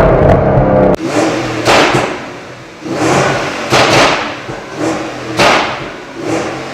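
Porsche Cayenne GTS exhaust: the engine is revved high, the throttle snaps shut about a second in, and a string of sharp pops and crackles follows, about one every second. The pops come from a tune set up for overrun pops, with the catalytic converters removed.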